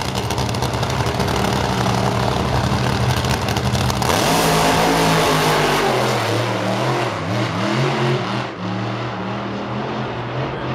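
Drag-racing car's engine running loud and steady on the start line, then launching at full throttle about four seconds in, its pitch climbing sharply. The pitch dips and climbs again twice at the gear changes, then falls away and weakens as the car runs off down the strip.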